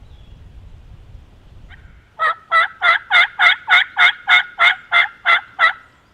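Wild turkey yelping close by: a run of about twelve evenly spaced yelps, roughly three a second, starting about two seconds in and stopping near the end.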